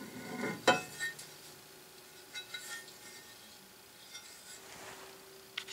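A few light metallic clinks and knocks as a cast metal sander table is handled against the band sander's frame, the strongest about half a second to a second in with a short ring after, then a few quieter clicks.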